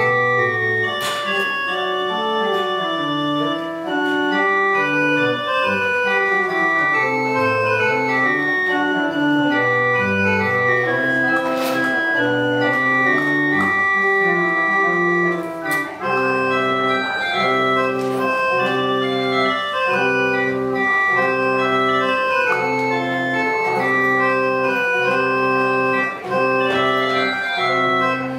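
Church organ playing a postlude: held chords over a moving bass line, changing about halfway through to a chord pattern repeated about once a second.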